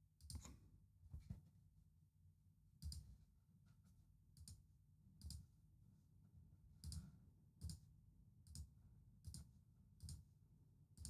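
Near silence with about a dozen faint computer mouse clicks, spaced roughly a second apart.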